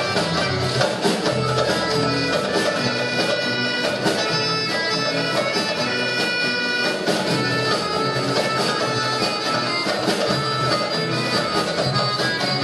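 Live music: guitars accompanying a held melody line, playing without a break throughout.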